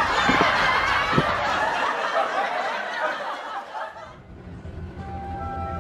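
People laughing and chuckling, fading out about four seconds in; music starts near the end.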